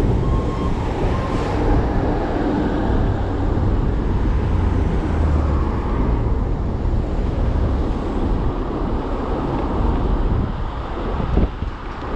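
Ride noise on an Okai ES400A electric scooter: a steady rush of wind on the microphone and tyre rumble over the road surface, with a brief knock near the end.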